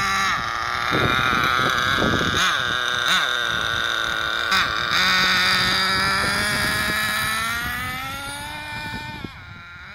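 Thunder Tiger Tomahawk 1/10 on-road RC car's small two-stroke nitro engine running at a high-pitched whine, revving up and down as the car drives past. Near the end the pitch drops and the sound fades as the car pulls away.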